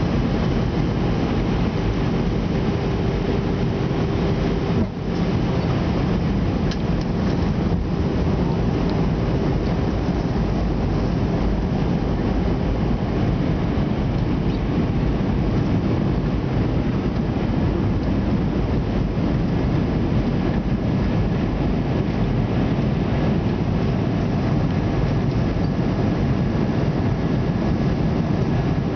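Steady cabin noise of an airliner descending to land: an even, low roar of engines and rushing air, with a faint steady hum for the first dozen seconds and a brief dip in loudness about five seconds in.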